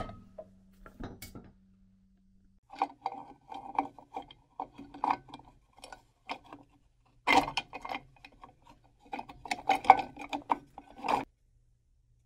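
Irregular bursts of hand scraping and rubbing on a metal part that rings a little, with short sharp knocks mixed in, during work on Land Rover rear drum brakes. The densest burst comes about three quarters of the way in, and the scraping stops shortly before the end.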